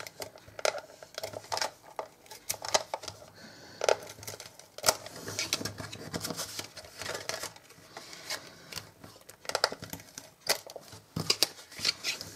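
Cardstock being handled at a craft desk: paper rustling, with many scattered sharp clicks and taps.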